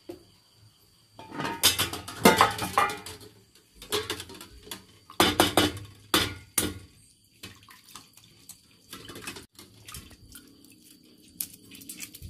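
Metal pan and utensils clattering on a kitchen stove: a run of scrapes and knocks from about a second in until about seven seconds in, then quieter.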